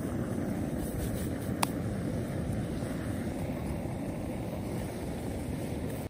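SOTO single-burner gas stove on a cassette gas canister burning at a steady roar, just lit, with a single light click about one and a half seconds in.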